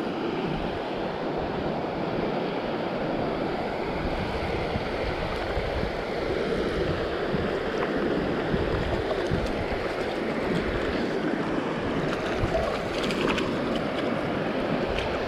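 Small stream's water rushing steadily, with wind rumbling on the microphone in gusts.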